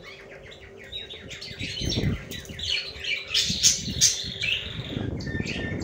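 Small birds chirping in quick, overlapping calls, busiest and loudest about three and a half seconds in.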